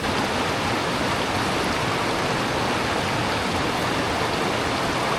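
Rocky mountain creek rushing, a steady dense water noise that comes in at once at full level and holds without change.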